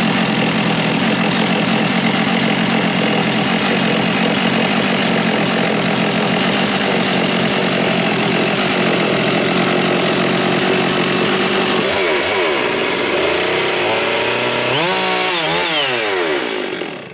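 Stihl MS 660 Magnum two-stroke chainsaw engine running loud and steady. In the last few seconds its pitch sags and swings up and down, then it cuts off suddenly as it is switched off.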